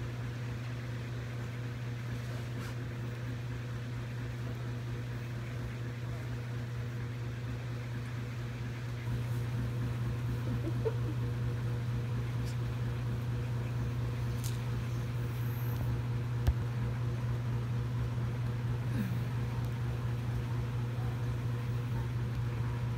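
Steady low mechanical hum, a little louder from about nine seconds in, with one sharp click about sixteen seconds in.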